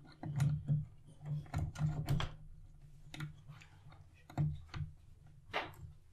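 Light clicks and taps at uneven intervals from jumper wires being handled and pushed into the pin sockets of the communication interface on a robot arm's base, over a low hum.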